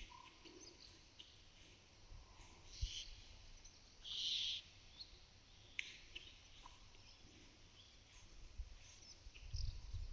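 Cows' tongues rasping on a mineral salt lick, with small birds chirping now and then. One longer scrape about four seconds in, and a low rumble near the end.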